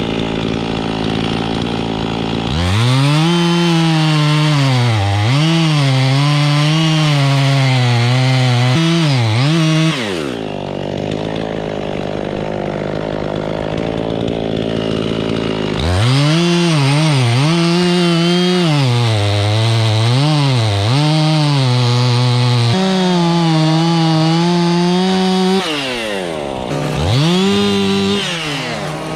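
Two-stroke chainsaw cutting through wood. It runs at full throttle twice for several seconds each, with the pitch sagging and recovering under load, drops back to idle in between, and revs again briefly near the end.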